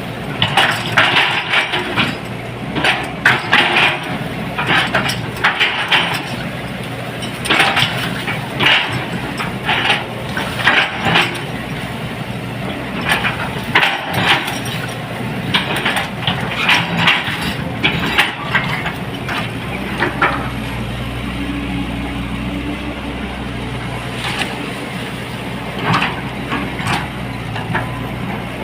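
Hydraulic excavator's diesel engine running, with repeated crunching and scraping as the bucket digs into earth. About twenty seconds in, the engine's low rumble grows heavier and the crunching mostly stops.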